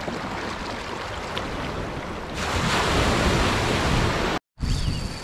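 Surf washing onto the beach, growing louder about two and a half seconds in as a wave comes up, with wind buffeting the microphone. The sound cuts out completely for an instant near the end.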